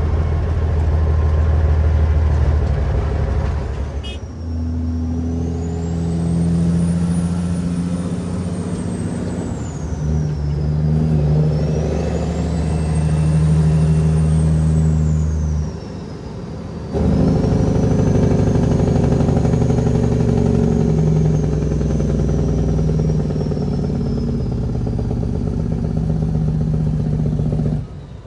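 Kenworth W900L's Cat 6NZ diesel engine running under a heavy load. A high whistle rises and falls in pitch above it, and the engine note dips briefly about 4 seconds in and again around 16 seconds before picking back up.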